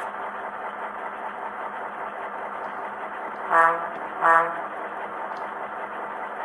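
Scale-model diesel locomotive sound from a small onboard speaker: a steady diesel engine drone, with two short horn blasts in the middle, the second about 0.7 s after the first.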